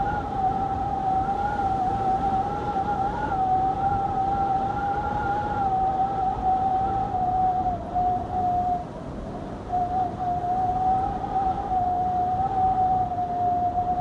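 Blizzard wind howling in a steady, slightly wavering high whistle over a low rushing roar, dipping briefly about two-thirds of the way through.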